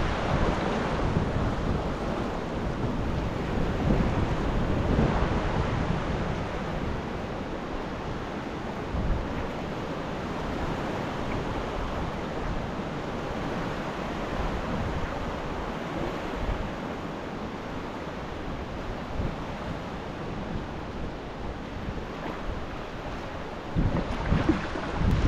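Sea swell washing and surging against the foot of rock sea cliffs, a steady rush of water with a few louder surges, the strongest near the end.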